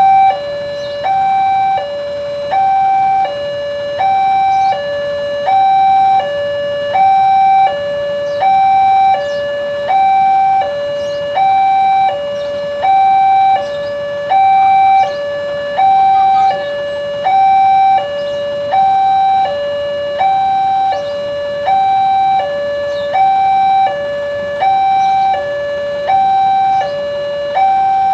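Electronic two-tone alarm of an Indonesian railway level crossing, sounding continuously to warn of an approaching train. It alternates between a higher and a lower note about once every two seconds, the higher note louder.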